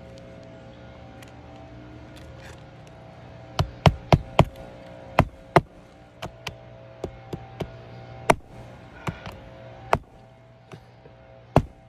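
Sharp knocks at irregular intervals from shingle-repair work, several close together about four seconds in, over a steady low hum.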